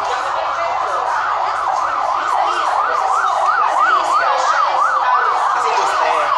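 Siren sounding in a fast up-and-down yelp, about four sweeps a second, over background chatter.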